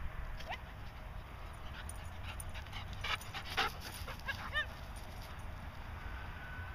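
Golden retriever close to the microphone giving a couple of short, soft whines about four and a half seconds in, among scattered light clicks and rustles.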